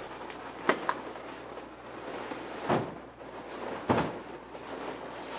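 Latex balloons rubbing and knocking against each other as a small filler balloon is pushed into a balloon garland by hand: four short sharp rubs, two close together just under a second in, one near the middle and one about four seconds in, over a steady low hum.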